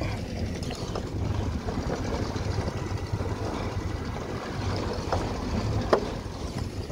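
Small open fishing boat under way: a steady low rumble of its outboard motor, mixed with wind on the microphone and water against the hull. A sharp knock about six seconds in, with a softer one just before it.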